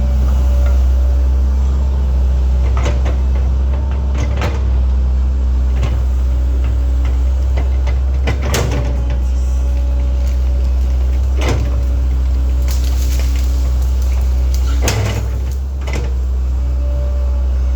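Link-Belt 2700 excavator working: the diesel engine runs with a steady low drone under load, with about six sharp clanks and knocks from the bucket and digging.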